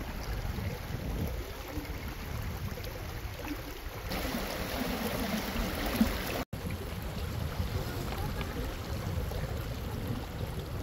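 Shallow stream water rushing and splashing through the gaps between granite stepping stones, with wind buffeting the microphone; the sound breaks off for an instant about two-thirds through.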